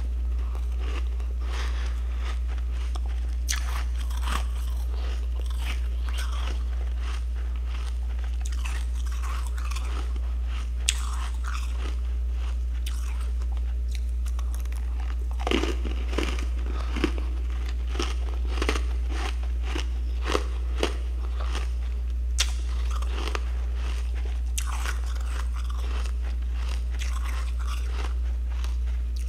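Chunks of freezer frost being bitten and chewed: a string of crisp, irregular crunches, busiest about halfway through, over a steady low hum.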